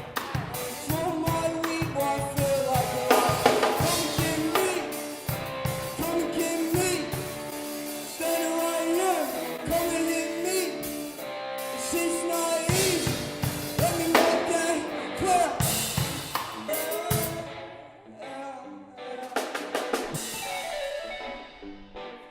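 Heavy band music: a drum kit playing busy beats on kick, snare and cymbals under bending electric guitar lines. The drums drop away about three-quarters of the way in, leaving sparser guitar.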